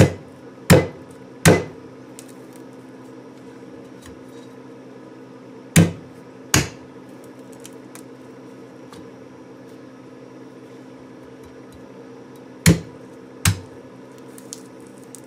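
A kitchen knife chopping into the thick husk of a young coconut, seven sharp strikes: three in quick succession, then a pair in the middle and another pair near the end. The blows weaken the husk to reach and crack the hard shell underneath.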